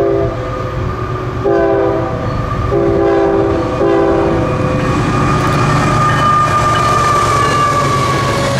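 Freight locomotive's multi-chime air horn sounding four blasts, a short one and then three longer ones, over the steady rumble of a passing train. Toward the end a high tone from the train slowly falls in pitch.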